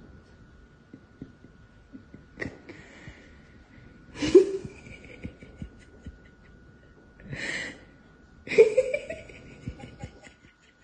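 Domestic cats squaring off, with a few short breathy hisses, the loudest about four seconds in; the last one carries a brief rising growl.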